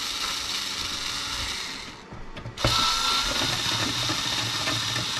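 Cordless power screwdriver running, backing screws out of a CB radio's metal case; it stops for about half a second about two seconds in, then runs again.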